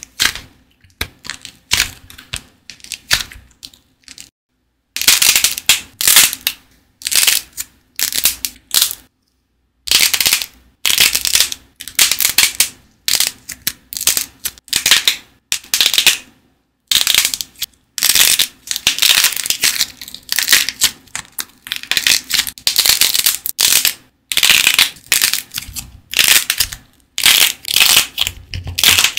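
Dried clay figures with a glossy hardened coating bent and pressed by hand, the coating cracking and crunching in dense runs of crackles. The crackles are quieter at first and loud from about five seconds in, with a few short silent breaks.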